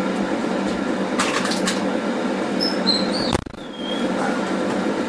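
Monzana hot-air fryer running, its fan giving a steady hum while it cooks. A few light clatters come about a second in, brief high squeaks around three seconds, and the sound drops out for a moment about three and a half seconds in.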